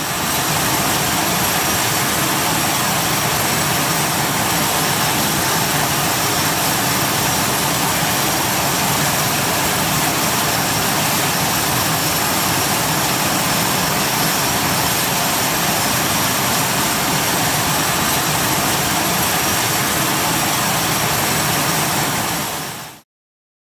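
Nextant G90XT's twin GE H75 turboprop engines running steadily on the ground, a steady rush of propeller and exhaust with a high, even turbine whine over it. It fades in at the start and fades out shortly before the end.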